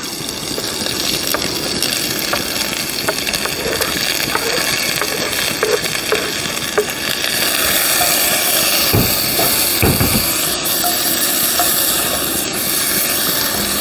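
Sliced onions sizzling as they fry in hot ghee in an enamelled cast-iron pot, with a wooden spoon scraping and clicking as they are stirred. The sizzle grows brighter about halfway through.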